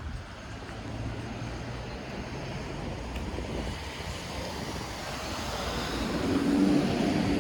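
City street ambience with traffic noise. A vehicle approaches and grows louder over the last two seconds, with a steady low engine hum coming in near the end.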